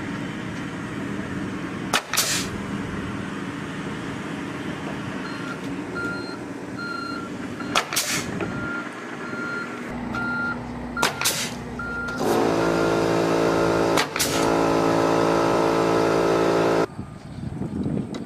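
A heavy construction vehicle's engine running with its reversing alarm beeping steadily, and several sharp metallic clanks. About twelve seconds in the engine revs up to a loud steady drone, which cuts off suddenly near the end.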